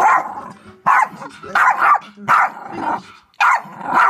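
Yorkshire terrier barking, a rapid run of short, sharp barks at about two a second with a brief pause about three seconds in.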